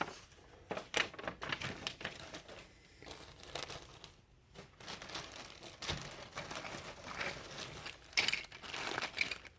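Plastic bags and paper crinkling as they are handled, in irregular rustles that get louder near the end.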